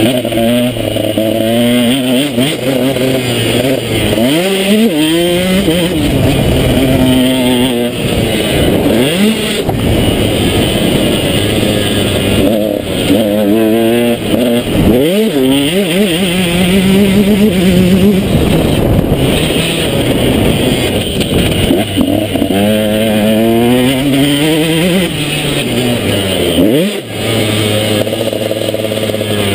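A 2012 KTM 125 SX's single-cylinder two-stroke motocross engine, heard from on board the bike, revving up and dropping back over and over as the rider accelerates through the gears and shuts off. The throttle is chopped briefly several times.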